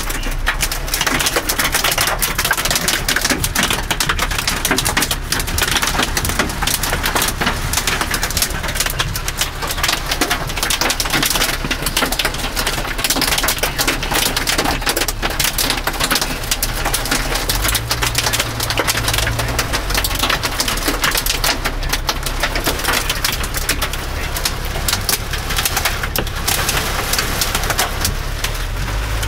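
Hail and heavy rain hitting the car's roof and windshield, heard from inside the cabin as a dense, continuous clatter of small impacts.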